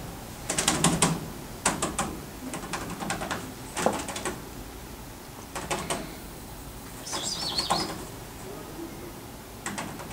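Fingers scratching and tapping on newspaper lining a cage floor, in short bursts of quick crackling clicks about every second or two, done to catch a cat's attention.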